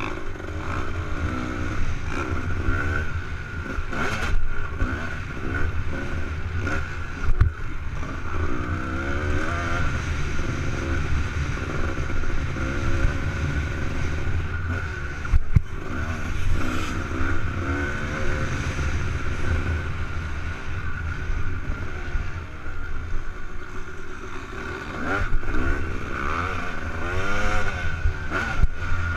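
Honda CR250R 250cc two-stroke motocross bike ridden hard on a dirt track, its engine revving up and down through corners and straights, over heavy wind rumble on the helmet-camera microphone. A few sharp knocks come through, about 4, 7 and 15 seconds in.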